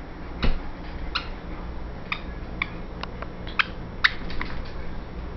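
German shepherd puppy whining in a string of about eight short, high-pitched cries, asking for his squeaky toy.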